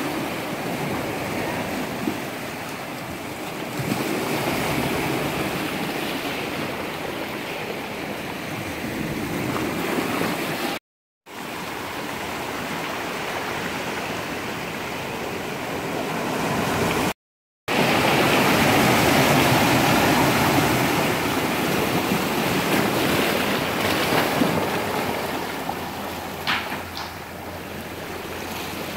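Steady rushing water, cut off twice by brief silences.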